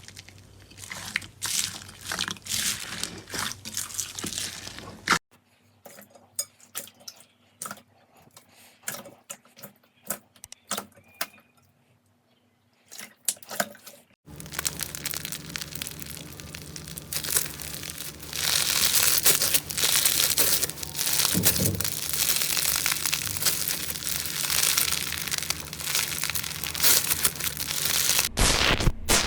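Slime squeezed and poked by hand, making crunchy, crackling sounds in three short clips. The first is a dense run of crisp clicks, the second is a quieter stretch of scattered pops, and the last is a long, dense crackle that grows louder partway through.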